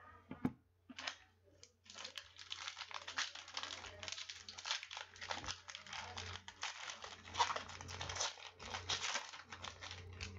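Foil wrapper of a 2016 Prizm football card pack being torn open and crinkled. A few light clicks come first, then about eight seconds of continuous crinkling.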